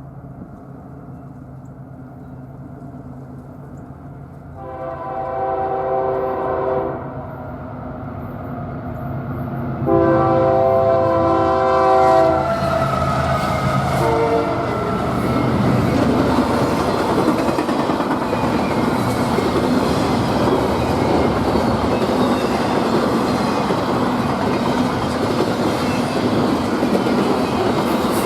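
Diesel locomotive approaching a grade crossing. The engine builds, then the multi-note air horn sounds two long blasts and a short one, and the train passes with loud, steady wheel and rail noise.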